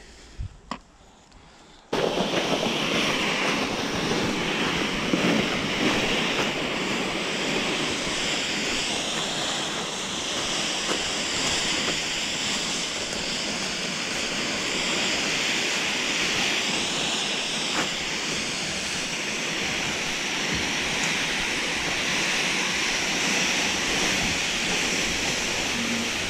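Steady loud rushing of wind on the microphone, starting abruptly about two seconds in after a few quiet seconds of small clicks.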